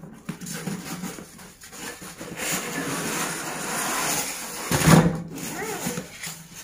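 Cardboard box flaps and polystyrene foam packing blocks scraping and rustling against the plastic-wrapped two-burner gas stove as it is worked out of its shipping box, with one louder thump about five seconds in.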